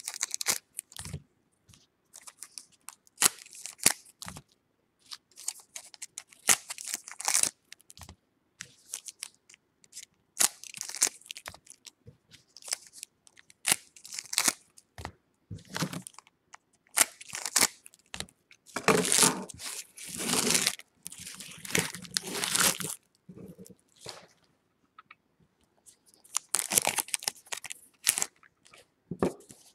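Baseball card pack wrappers being torn open and crinkled while the cards are handled: irregular crackling and tearing, with longer stretches about two-thirds of the way in and near the end.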